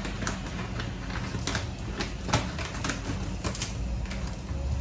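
Glutinous rice being poured from its plastic packet, an irregular run of small clicks and rattles as the grains fall.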